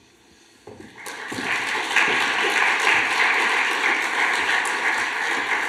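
Audience applauding, starting about a second in, building quickly and then holding steady.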